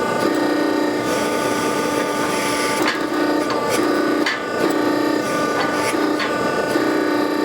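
Blacksmith's metalworking: about half a dozen sharp, irregularly spaced strikes and repeated scraping strokes over a steady hum.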